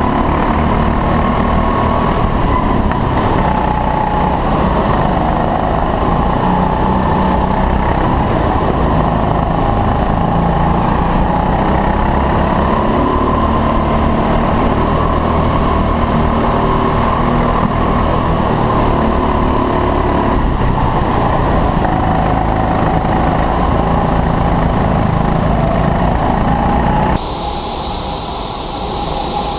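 Onboard sound of a 6.5 PS rental go-kart engine running flat out in a race, its pitch rising and falling as the kart brakes and accelerates through the corners. About three seconds before the end the sound cuts abruptly to a quieter, hissier sound of karts heard from beside the track.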